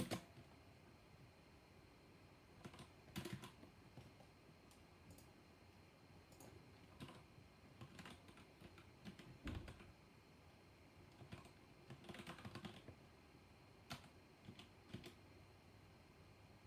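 Mechanical keyboard with black linear switches being typed on in short, irregular runs of keystrokes separated by pauses of a second or two.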